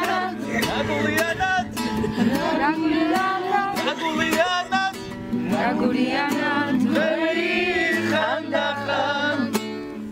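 Background music: a song with a voice singing over acoustic guitar.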